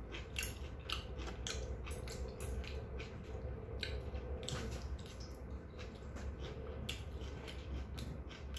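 A person eating with metal chopsticks: chewing, with irregular short clicks of the chopsticks against each other and against a steel bowl, over a steady low hum.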